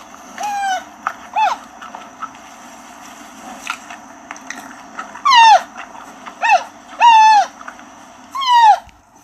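Giant panda giving about six short, high-pitched calls, each falling in pitch at its end: two in the first second and a half, then four more after a pause of several seconds.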